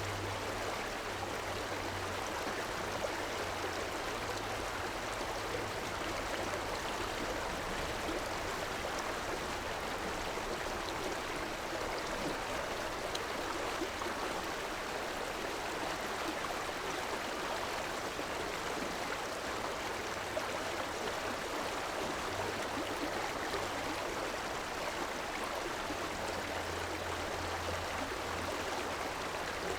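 Urban river water rushing and flowing steadily, with a low hum underneath in the first few seconds and again near the end.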